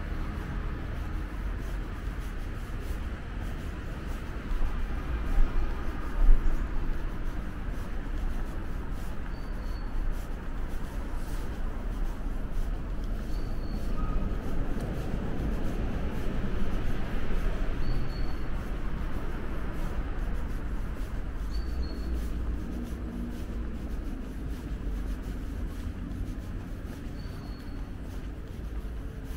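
Steady low rumble of city traffic. Two louder thumps come about five and six seconds in, and a short, faint high chirp repeats every four seconds or so.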